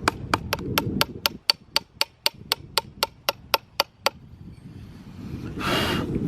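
Hand chisel being struck with a hammer to carve limestone: quick, evenly spaced ringing taps, about four a second, that stop about four seconds in. A short hissing rush follows near the end.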